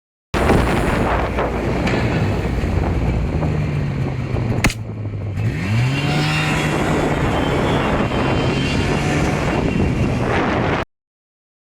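A motor vehicle's engine running steadily, with wind rushing over the microphone. About halfway there is one sharp click, then the engine note rises as it picks up revs and holds at the higher pitch. The sound cuts off suddenly near the end.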